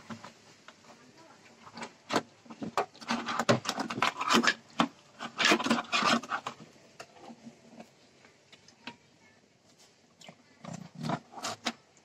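Hands and a live crab scraping, knocking and rustling against a plastic bucket and a clear plastic tub as the crab is grabbed. The sound comes in irregular bursts of clicks and scrapes, with a quieter stretch shortly before the end and one last burst.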